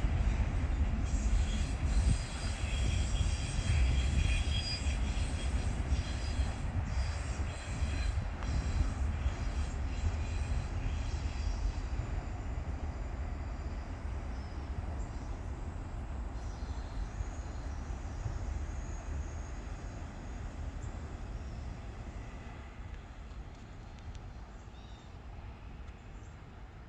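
Autorack freight cars rolling away, a low rumble of wheels on rail that fades steadily as the train recedes, with faint high wheel squeal in the first few seconds.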